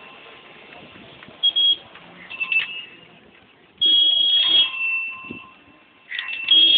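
Busy street traffic sounding four short, high-pitched warning signals, the longest near the middle lasting about a second, over faint street noise.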